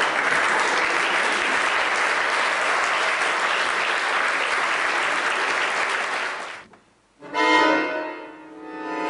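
Audience applauding steadily for about six and a half seconds, then cut off abruptly. After a moment of silence, an accordion sounds a held chord that swells, fades and swells again.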